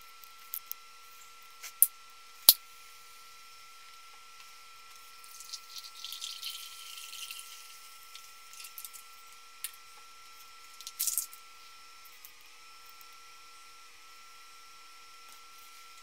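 Carbonated soda poured from a can into a glass bowl for about two and a half seconds, starting about five seconds in. Before it come two sharp clicks, the loudest sounds, and a faint steady high tone runs underneath.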